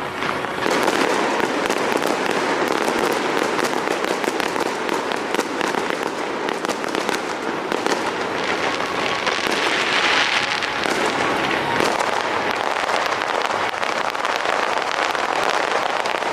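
Aerial fireworks display: a dense, continuous crackling and popping from many bursting shells, with no quiet gaps.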